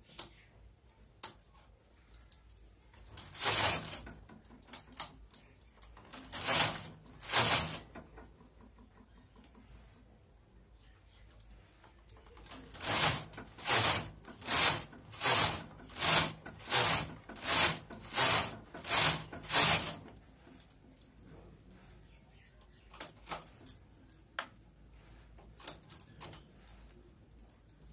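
Carriage of a Brother hand knitting machine sliding across the needle bed. There are a few single passes, then a quick run of about eleven back-and-forth strokes, each a short sliding noise. Light clicks of needles being moved by hand come near the end.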